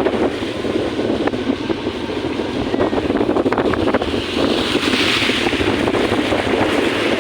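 Wind buffeting the microphone over rushing, splashing floodwater while moving through a flood, with a vehicle running underneath.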